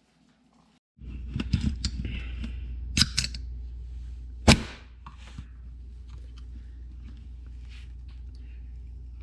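Aluminium beer can being opened: a few clicks and taps as it is handled, then a sharp crack of the pull tab about halfway through, over a steady low hum.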